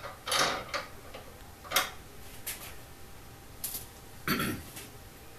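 Oiled steel gas piston of an Ithaca Mag-10 10-gauge shotgun being slid onto the barrel lug: a few short metal scrapes and clicks, with a sharp click a little under two seconds in.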